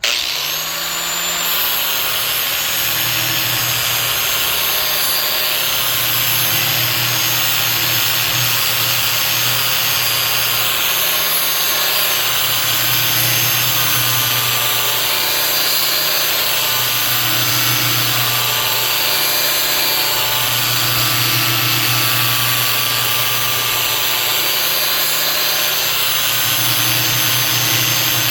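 Electric angle grinder with a 40-grit zirconia flap disc grinding the edge of a steel mower blade. It comes on right at the start with a steady motor whine, and the grinding swells and eases every couple of seconds as the disc makes repeated passes along the edge.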